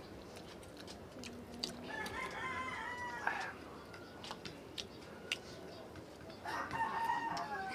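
A rooster crowing twice, each crow lasting over a second and ending in a falling tail: once about two seconds in and again near the end.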